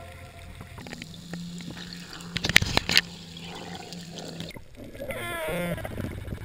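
Underwater sound picked up through a camera housing: a steady low hum and water noise, with a cluster of sharp clicks and knocks about two and a half to three seconds in. A short wavering pitched sound comes near the end.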